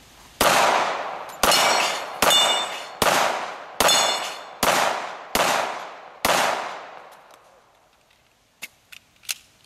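Pistol firing a string of eight rapid shots, about one every 0.8 seconds, each echoing off the range. Several shots are followed by a short metallic ring: bullets striking steel targets. A few faint sharp clicks come near the end.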